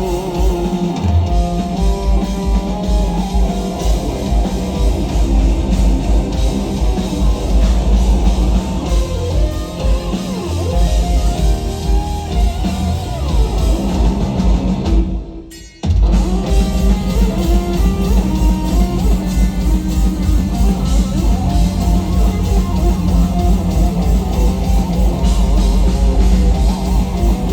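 Live instrumental heavy metal: a shred lead electric guitar over distorted rhythm guitar, bass and drum kit. About halfway through, the lead slides down in pitch and the band cuts out almost completely for under a second, then crashes back in at full volume.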